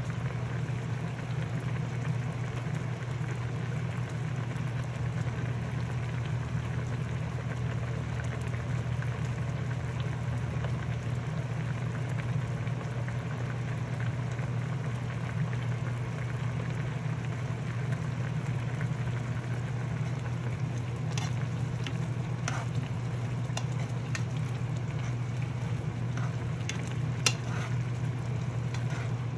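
Food sizzling in a hot pan or pot, a steady hiss over a low steady hum, with a few sharp clicks of utensils in the last third.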